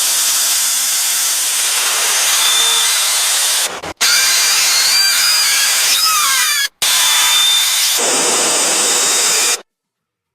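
Workshop tool noise: a steady hissing whir, broken by two sudden cuts, with a few faint sliding squeaks in the middle stretch, then cut off to silence near the end.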